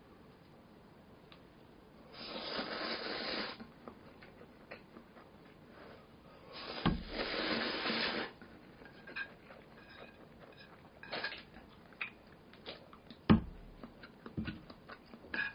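Tableware being handled: two spells of rustling about a second and a half long, then scattered light clicks and knocks, the loudest about two-thirds of the way through.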